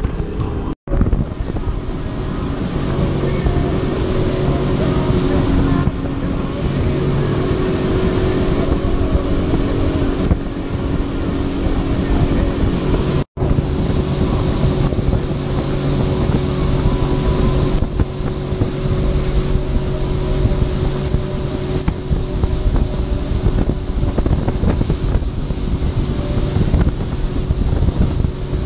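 Personal watercraft engine running at steady speed, holding one pitch, with wind buffeting the microphone and water rushing and spraying under the hull. The sound cuts out briefly about a second in and again about halfway through.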